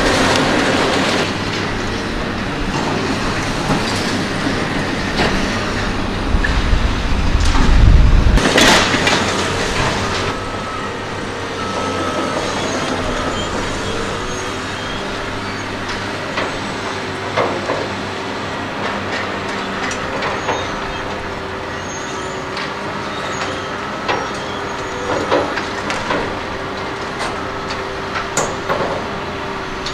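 Hydraulic excavators working on demolition, their engines running steadily with a held whine, against scattered metal clanks and knocks of debris. A heavy rumble about eight seconds in is the loudest moment.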